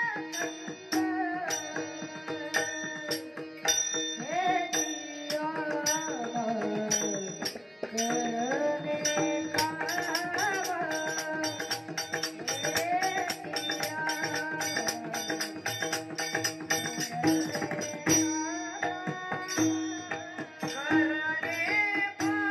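A boy's voice singing a Warkari devotional melody, gliding up and down over a steady drone, with small hand cymbals (taal) clashed in an even rhythm.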